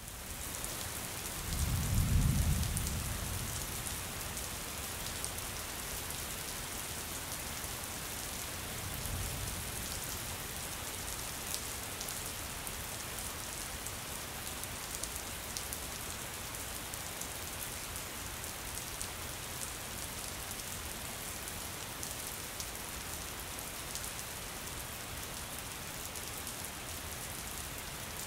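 Steady rain falling, a continuous hiss with fine droplet patter. A low rumble of thunder comes about two seconds in, the loudest moment, and a fainter one around nine seconds.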